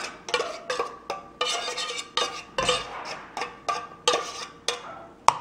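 Metal spoon scraping and clinking inside an opened tin can while scooping out canned chicken. It is a quick run of short scrapes, with one sharp clink near the end.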